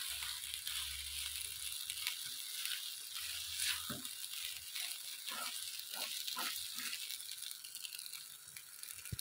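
Spatula stirring and scraping thick semolina halwa in a non-stick pan: a run of irregular scrapes over a steady hiss. It cuts off suddenly near the end.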